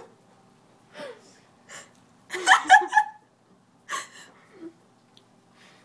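People laughing and gasping in short bursts, the loudest about two and a half seconds in.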